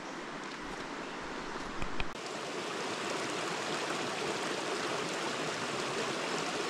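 Small rocky creek rushing and splashing over cobbles, a steady rush that gets louder about two seconds in. A couple of brief sharp knocks come in the first two seconds.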